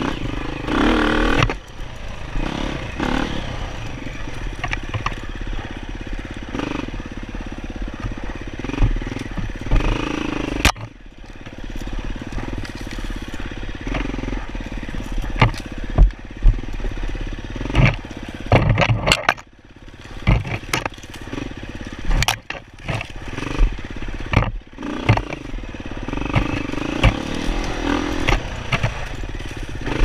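Dirt bike engine revving up and down under throttle on a rough trail, with sharp knocks and clatter from the bike over the ground and brush scraping past.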